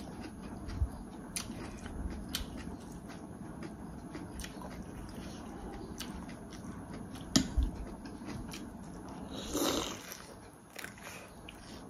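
A person chewing food, with scattered small clicks and taps, the sharpest about seven seconds in, and one short breathy sound near the end.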